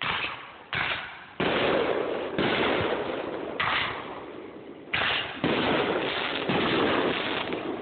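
Fireworks going off in quick succession: about six sudden reports, each followed by a dense crackling hiss that barely dies away before the next. Heard through a phone's microphone, which cuts off the highs.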